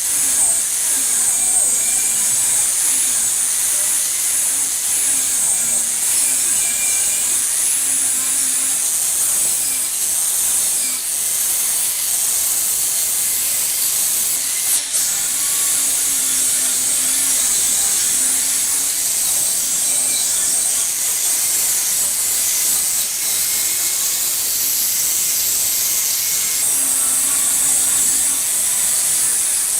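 A power tool doing abrasive work on the axe makes a steady, high hiss, with a faint low hum that comes and goes.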